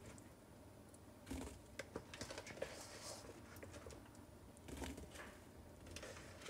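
Soft, light taps and pats of boiled potato sticks being set down by hand on paper towels over a cutting board, coming in two spells of quick little clicks and thuds.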